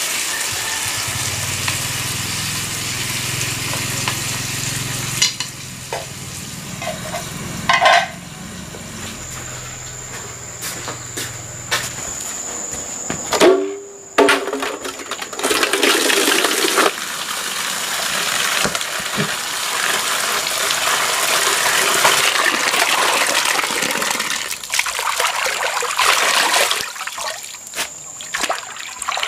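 Chicken sizzling in a frying pan over a wood fire. Later, water runs from an outdoor tap into a metal basin and splashes as leafy greens are swished and washed by hand.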